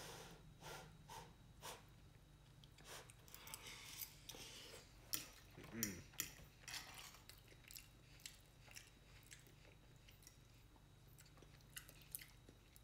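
Faint chewing and mouth sounds of a person eating chili and rice, with small irregular clicks of a metal fork against the plate.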